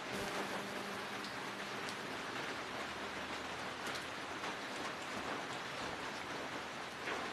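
Steady rain-like hiss, with a few faint light ticks from hands handling copper magnet wire leads and insulating sleeving on an electric motor stator.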